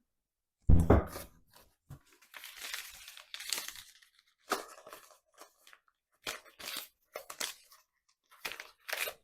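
Cardboard packaging being handled and torn, in several rustling, scraping bursts, after a dull thump a little under a second in.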